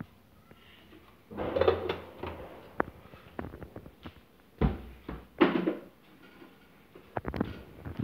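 Kitchen items being handled: several short knocks and clatters of a jar and utensils, with pauses between them.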